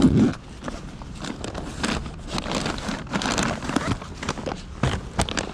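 Rustling and scraping as a hand rummages in a foil-lined insulated delivery bag and handles a paper takeaway bag, with irregular clicks and a loud thump right at the start.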